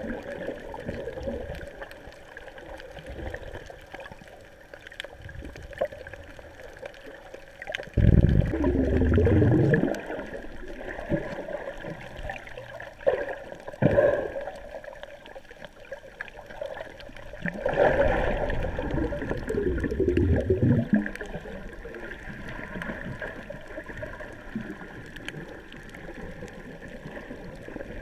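Muffled underwater water sound with two long, loud gurgling bursts of bubbles, about eight and eighteen seconds in, and two sharp knocks in between.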